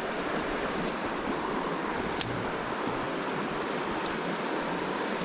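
A small creek running steadily, a constant rushing hiss of moving water, with one sharp click about two seconds in.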